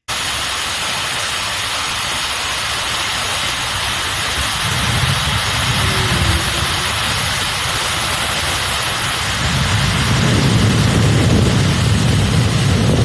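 Hair dryer blowing, a steady loud rush of air with a low rumble that swells about four seconds in and again near ten seconds.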